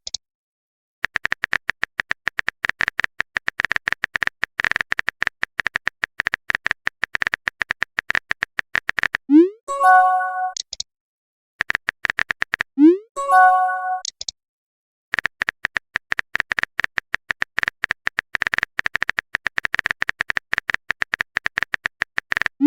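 Chat-app sound effects: long runs of rapid typing clicks, broken twice by a short rising swoop and a bright chime, the sent/received-message notification sound.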